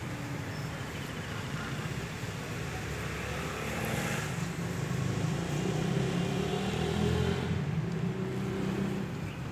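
Steady road-traffic noise: car and motorcycle engines running on a nearby road, swelling a little about six to seven seconds in.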